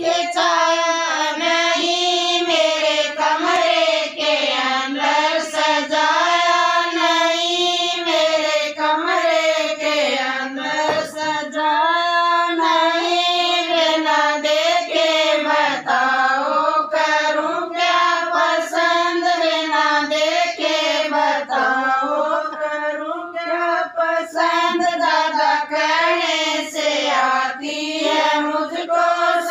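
A group of women singing a Haryanvi folk wedding song (sangeet geet) together, in unison and without a break.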